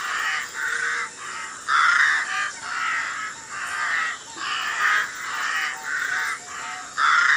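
Crows cawing over and over, a string of harsh caws coming about one to two a second.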